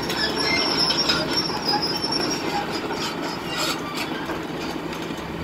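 School bus sheet-metal body screeching and crunching as an excavator's shears grip and drag it. A high squeal fades over the first couple of seconds, then a sharp crunch comes about three and a half seconds in.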